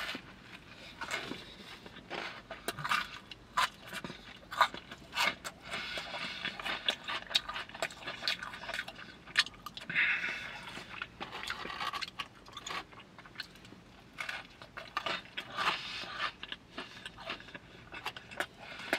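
Crunching and chewing of a chicken sandwich with lime hot Cheetos added for crunch, eaten close to the microphone, with many irregular crisp crackles.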